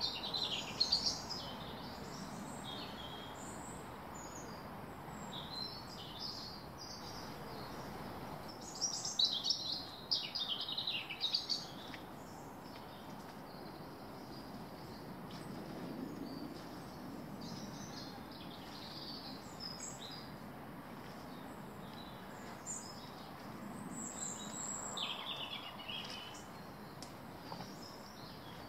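Small birds chirping and singing, in scattered bursts that are busiest near the start, about a third of the way in, and again near the end, over a steady low background hiss.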